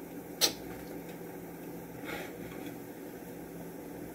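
A single sharp click or knock about half a second in, over a steady mechanical hum; a fainter scrape or rustle follows about two seconds in.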